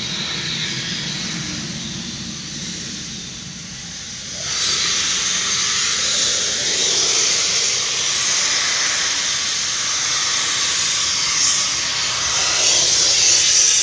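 Low mechanical hum, then a steady loud hissing noise that starts suddenly about four and a half seconds in and holds on.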